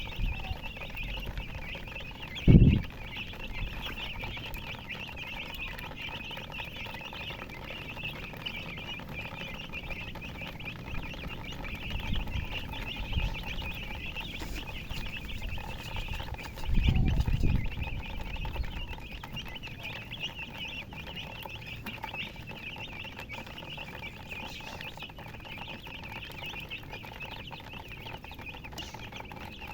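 Chickens chirping continuously, many overlapping high peeps with no break. Two short low thumps come through, one a couple of seconds in and one just past the middle.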